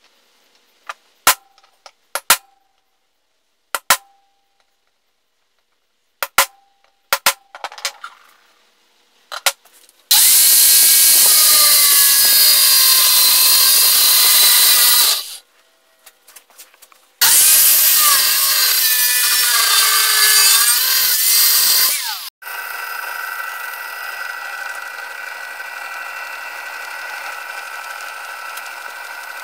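A series of sharp taps and clicks, then an angle grinder cutting through the steel brake-disc blade in two long passes, its pitch wavering as it bites, and finally a power drill running steadily as it bores pin holes in the steel.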